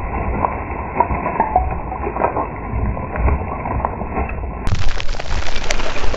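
Slowed-down sound of a 12-gauge slug shattering a porcelain toilet tank: a dull, muffled rumble with crackling shards and spraying water. About four and a half seconds in it changes abruptly to real-time sound, brighter and full of sharp ticks and clatters as porcelain fragments land.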